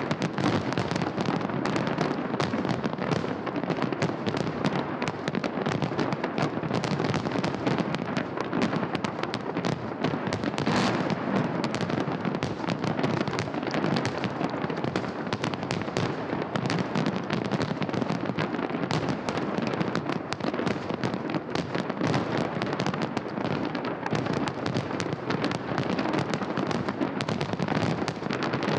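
Fireworks salute going off in a dense, continuous run of bangs and crackles.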